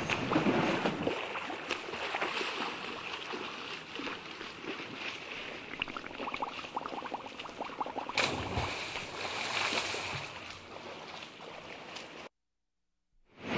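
Water sound effects: a steady wash of lapping, gurgling water with small crackles, cutting out completely for about a second near the end.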